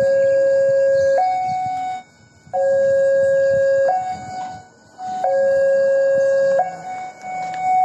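Railway level-crossing warning alarm sounding a two-tone electronic signal, stepping back and forth between a lower and a higher tone about every second and a half and cutting out briefly twice. It warns that a train is approaching while the crossing barrier is down.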